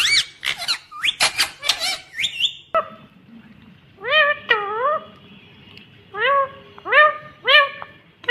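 Indian ringneck parakeet calling. A rapid run of short chattering notes comes first, then after a brief pause five separate squawks, each rising and falling in pitch, spaced about half a second to a second apart.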